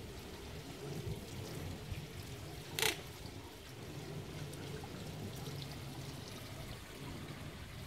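Water trickling and splashing steadily in a garden pond fountain, with one sharp click about three seconds in.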